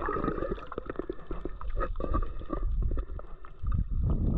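Muffled sea water gurgling and sloshing around a camera held in the water, with many small crackling clicks over a low rumble.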